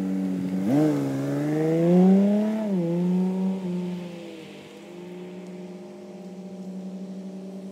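Vaydor kit car's Infiniti G35 V6 engine accelerating. The engine note climbs for about two seconds and drops sharply near three seconds in as the revs fall, then settles into a quieter, steady run.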